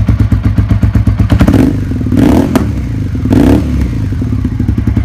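Suzuki SV650's 90-degree V-twin engine idling with a fast, uneven pulse, revved briefly three times in the middle.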